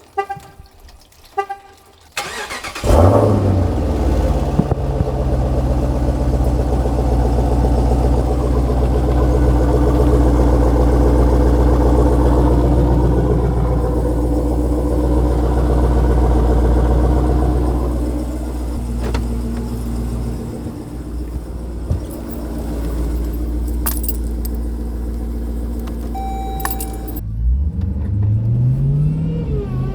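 A few short chime-like tones, then a Jeep Grand Cherokee Trackhawk's supercharged 6.2-litre Hemi V8 starts about three seconds in, flares and settles into a steady idle. Near the end its pitch climbs as it is revved to pull away.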